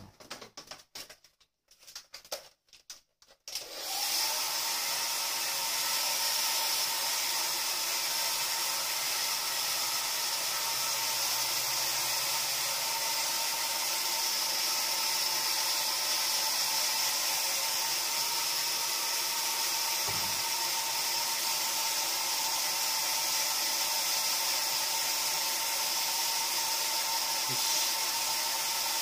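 A handheld hair dryer switches on about four seconds in, after a few brief handling knocks, and then runs steadily: a constant rush of air with a steady motor whine, blowing a wet kitten's fur dry.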